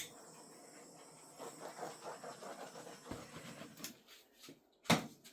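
A dog panting softly in quick, even breaths for a couple of seconds, framed by two sharp clicks, one right at the start and a louder-than-the-panting one about five seconds in.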